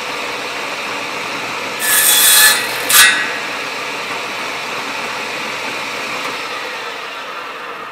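Table saw running steadily, its blade cutting through a pine 2x2 strip to part off the step blocks: one loud cut about two seconds in lasting under a second, then a second short cut about a second later.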